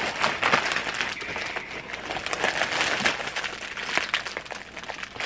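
Clear plastic bag and packaging crinkling and rustling as hands rummage through it and pull items out, an irregular run of crackles and rustles.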